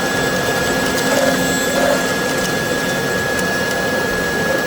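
Large-format printer running: a steady whirring rush with a constant high whine.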